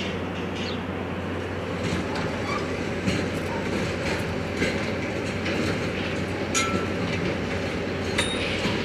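Steady drone of a running generator, with a few sharp metal clanks, some ringing briefly, as carnival ride parts are handled and taken apart.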